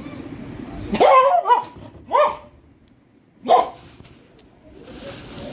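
Spitz-type dog barking four times over about two and a half seconds, starting about a second in. The dog is resisting having its nails cut.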